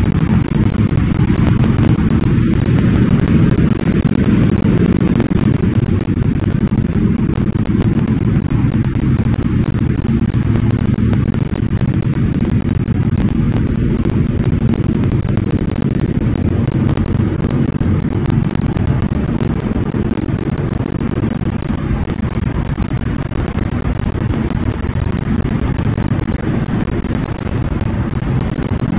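Motorcycle running steadily while it is ridden through a road tunnel. It is a loud, even low rumble mixed with wind on the microphone.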